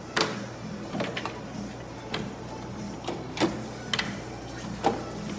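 Irregular clacks and knocks of hard parts being taken out and handled on an ice cream shop counter during cleanup, about eight in all, over a low steady hum.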